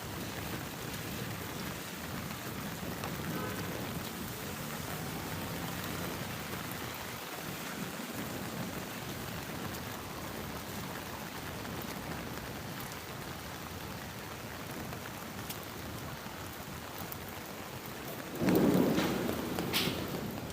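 Steady heavy rainfall, an even rushing hiss, with a sudden louder burst of noise near the end lasting about a second and a half.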